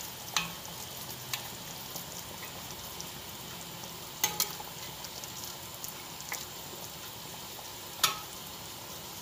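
Soy-sauce braising liquid bubbling and sizzling steadily in a wok, with a few sharp clicks, the loudest about four and eight seconds in.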